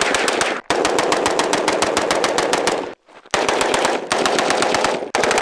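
Unsuppressed Sig Sauer Rattler short-barrelled rifle firing fast strings of shots, many shots a second. The strings are broken by brief pauses, the longest about three seconds in.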